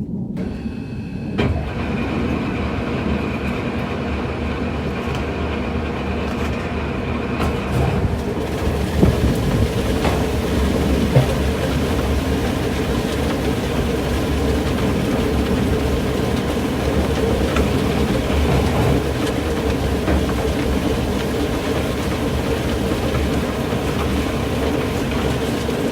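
A machine running steadily with a rattling clatter, holding a constant hum and a high whine, with a few sharp knocks in the middle.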